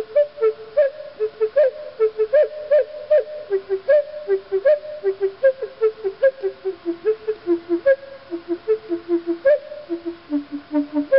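Native American flute playing a quick run of short notes in a low-middle register, several a second, some notes sliding up as they start.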